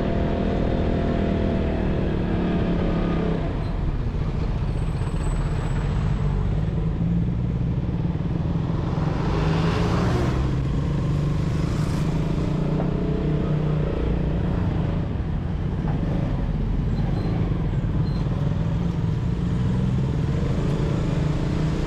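Motorcycle engine running steadily at low revs, heard from on board the bike as it rides through city streets with traffic around it; the street noise swells briefly about ten seconds in.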